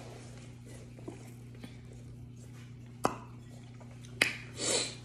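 Quiet room with a steady low hum, broken by two sharp clicks a little over a second apart, and a short hissing rush just before the end.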